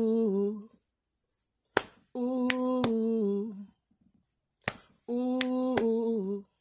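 Intro of a rap song: a hummed vocal note, held about a second and a half and stepping down in pitch at its end, repeats three times over finger snaps.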